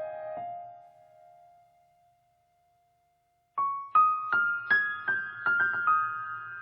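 Piano intro: held notes die away to silence about two seconds in, then single notes of a slow melody start again about a second and a half later, a few notes a second.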